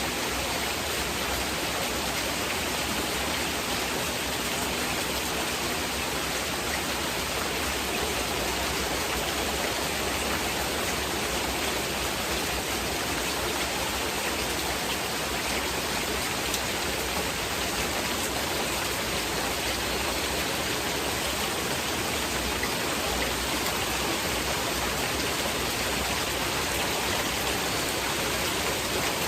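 Heavy rain falling steadily, an even hiss without separate drops or other events.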